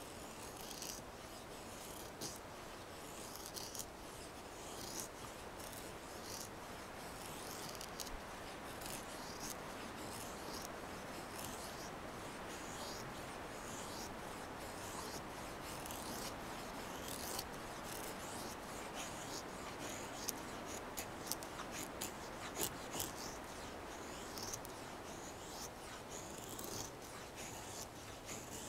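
Fallkniven A1 knife blade shaving thin curls down a wooden stick, carving a feather stick. The scraping strokes come one after another, irregularly.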